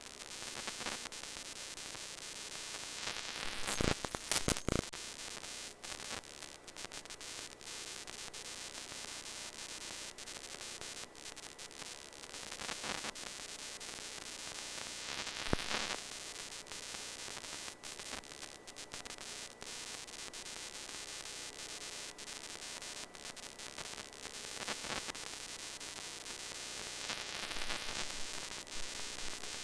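Steady static hiss on the audio of a noisy analog TV signal received off an amateur-television repeater. Short crackles break through about four seconds in and again around fifteen seconds.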